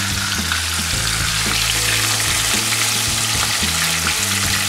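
Marinated chicken thighs sizzling steadily as they fry in a pan on high heat.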